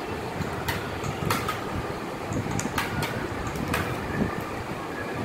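Metal spoon stirring thick rice-flour porridge in a steel bowl: a steady scraping, sloshing noise with a handful of sharp, irregular clinks of spoon on steel.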